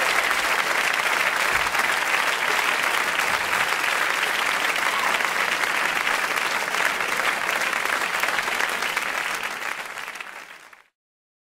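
Live audience applauding, the clapping fading out about ten seconds in and ending in silence.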